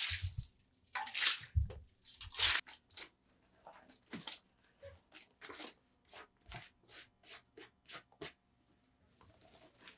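Liquid poured from a steel bowl splashing onto cabbage leaves in a plastic tub, followed by a few louder rustling crunches. Then a run of light taps and crunches, about two a second, as sliced onion is scraped off a plastic cutting board and drops onto the leaves.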